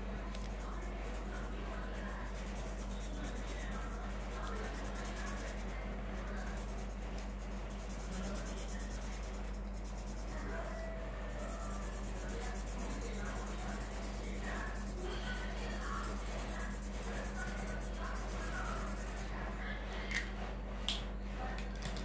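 Felt-tip pen scratching and rubbing on paper as an area is coloured in, over a steady low hum. A couple of sharp clicks come near the end.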